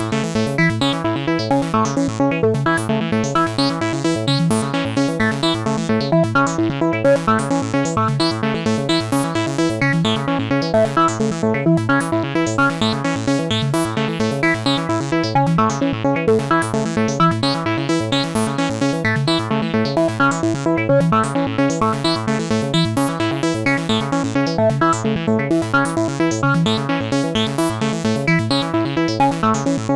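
Electronic ringtone tune played on FL Studio's Sytrus software synthesizer: a loop of rapid, evenly repeating synth notes at a steady pulse.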